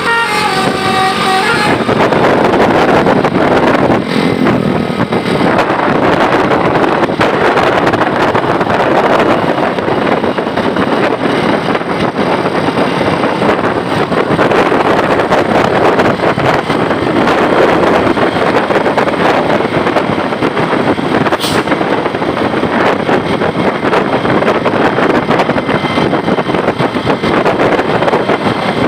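A multi-tone telolet bus horn plays the last notes of its tune, stopping about a second and a half in. Then loud, steady vehicle noise follows: a bus running close by.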